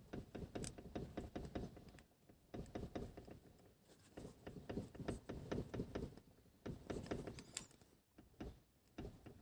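A car body is rocked by hand, giving faint clusters of short knocks and clunks in several bursts with brief pauses between them. This is the rattle from the rear strut area, the sign of an under-tightened bolt working loose at the rear shock absorber mount.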